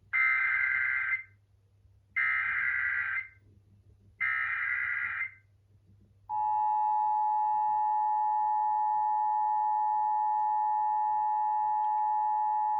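Emergency Alert System SAME header: three bursts of data tones, each about a second long with about a second between them, followed about six seconds in by the steady two-tone EAS attention signal. Together they mark the start of an emergency alert broadcast.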